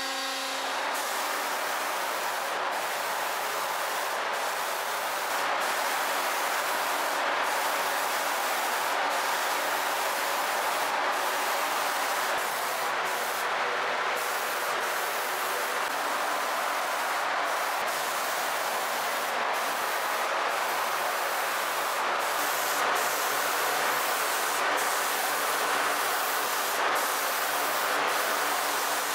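Gravity-feed compressed-air paint spray gun hissing steadily as it sprays paint.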